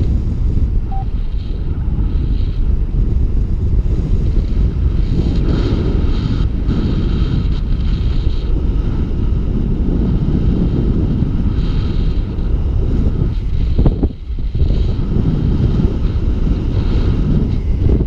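Wind buffeting an action camera's microphone in a paraglider's airflow during flight: a loud, steady low rumble of wind noise that dips briefly about 14 seconds in.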